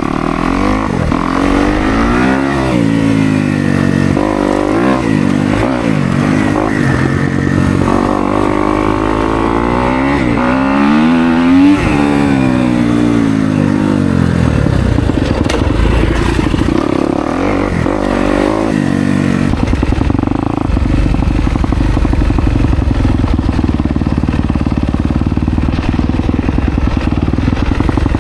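Kawasaki KX250X four-stroke single-cylinder dirt bike engine under way, its pitch rising and falling over and over as the throttle is worked through the first half. From about twenty seconds in it runs at a steadier, lower pitch.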